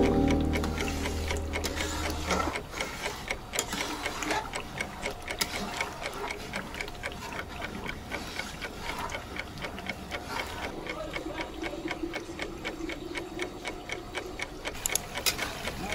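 Quick, even ticking or tapping, several clicks a second, keeping a steady rhythm.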